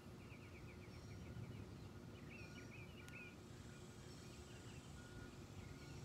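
Faint birds chirping, with two short runs of trilled chirps in the first half and a few single notes later, over a low steady background rumble.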